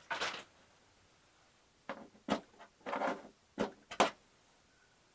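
Knocks, clicks and short scrapes of parts being handled and pried while a flat screen TV is taken apart, a handful of separate strokes spread over a couple of seconds.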